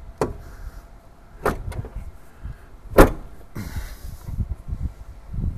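The hood of a GMC Sierra 2500HD is lowered and latched. A few light clicks come first, then a sharp, loud latch thunk about three seconds in and a brief rustle. It closes with no crunch of contact against the newly fitted A-pillar light brackets.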